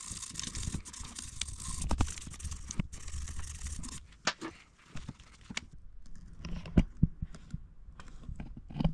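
Brake-cleaner-soaked cotton swab scrubbing carbon and fuel deposits from a motorcycle intake port: a dense scratchy rubbing for about four seconds that stops suddenly, then scattered light clicks and knocks.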